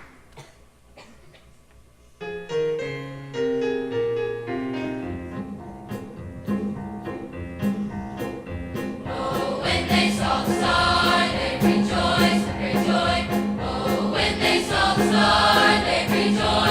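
A large high school choir singing a Christmas piece. After about two seconds of near-quiet, an instrumental introduction of pitched notes begins, and the full choir comes in loudly about nine seconds in.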